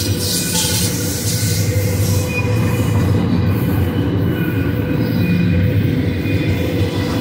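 Double-stack container well cars of a BNSF intermodal freight train rolling past close by: a steady, loud rumble of steel wheels on rail with a thin high whine over it.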